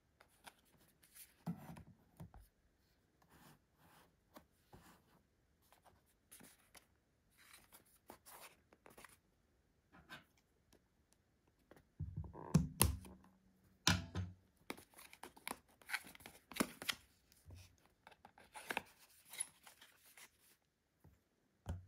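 Small cardboard boxes being handled and opened by hand: scattered rustles, scrapes and light taps of card, loudest and busiest a little past the middle.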